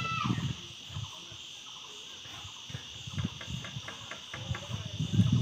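Steady high-pitched outdoor insect chorus, with a quick run of clicks about three seconds in and a few low rumbles.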